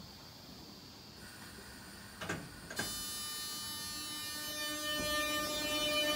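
Southeastern Class 465 Networker electric multiple unit at the platform: two clunks about two seconds in, then its electric traction equipment starts up with a whine of many steady tones, joined by a lower hum, as the train begins to pull away.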